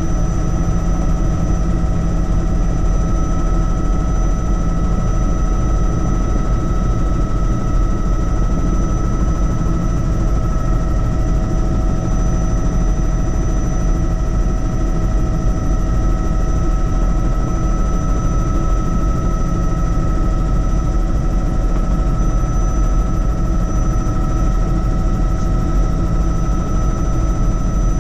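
Helicopter in steady flight: a loud, even drone of engine and rotor, with steady whining tones over it.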